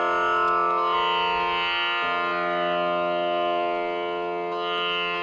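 Raagini electronic tanpura playing its drone: sustained plucked-string notes cycling one after another over a steady ringing bed. It cuts off suddenly at the end.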